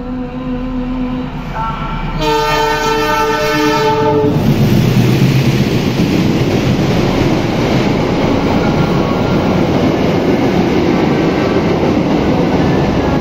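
A passenger train's horn sounds one steady multi-tone blast for about two seconds. The train then passes close by, a loud, steady noise of wheels and carriages on the rails that holds to the end.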